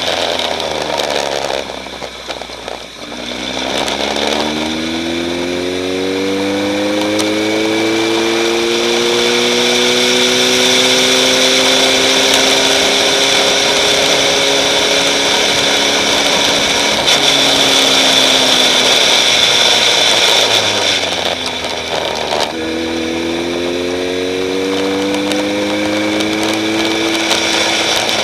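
Off-road race vehicle's engine under load, its pitch dropping about three seconds in, then climbing slowly and levelling off, dipping again a little after twenty seconds and climbing once more, over a steady rush of wind and road noise.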